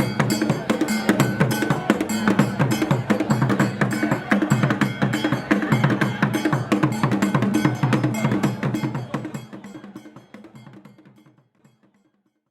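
Background music with a driving percussion beat of drums and wood-block-like knocks, fading out over the last few seconds.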